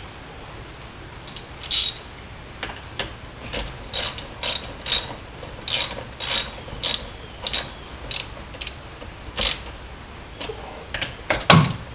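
Socket ratchet wrench clicking in short, uneven strokes as a nut is tightened down on a battery terminal, with a louder knock near the end.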